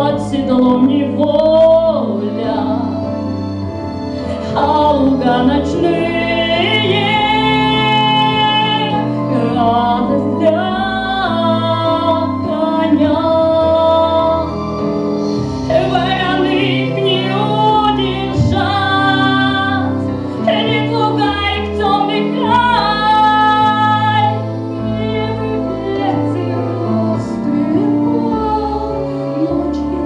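A woman singing a song into a microphone, with held notes, over instrumental accompaniment.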